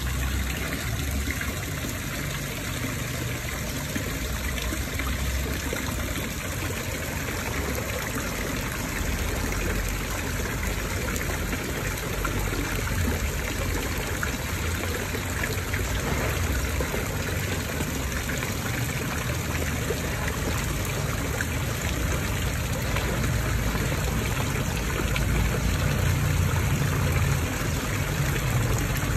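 Water from small fountain jets and a rock waterfall splashing steadily into a garden koi pond.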